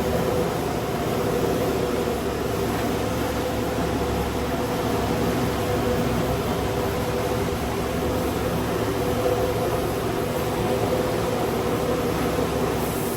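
Steady mechanical running noise with a constant hum; a low rumble under it eases off about five seconds in.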